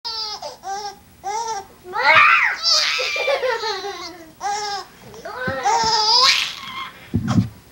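Baby laughing: a string of short rising-and-falling giggles, breaking into louder, high-pitched squealing laughs about two seconds in and again near six seconds.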